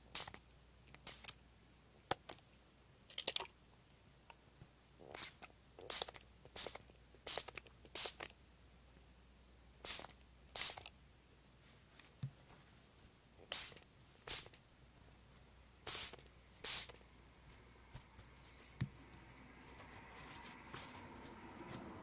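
Small plastic pump spray bottle filled with water, sprayed in a string of short hisses, often two in quick succession, onto kitchen paper. Toward the end comes soft rustling as the wet paper is handled.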